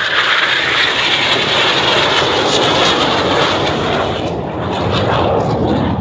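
Twin-turbojet US Air Force T-38 Talon jets passing low over the crowd, a loud roar that turns deeper over the last couple of seconds as they go by.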